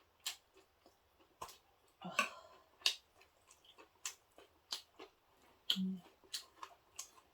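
Eating noises: a string of short, sharp mouth clicks and smacks from chewing, irregularly spaced, with a brief low hum about six seconds in.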